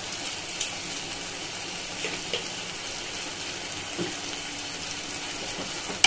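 Spice paste sizzling as it fries in oil in a kadai, a steady hiss with a few faint clicks, ending in a sharp knock.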